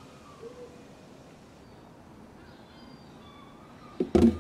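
Mostly quiet, with a few faint high chirps; about four seconds in, two loud knocks as an empty plastic bottle is handled and set down in a car's engine bay.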